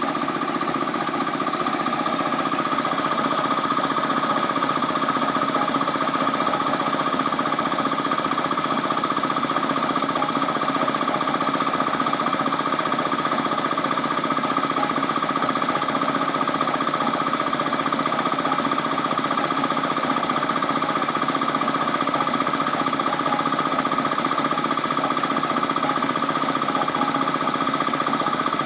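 Hitachi Bebicon 1 HP piston air compressor running steadily on its first test run after restoration. It makes a rapid, even chugging with a constant high tone.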